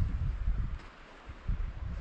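Wind buffeting the microphone in uneven low rumbling gusts: strong at first, easing off around a second in, then gusting again about one and a half seconds in.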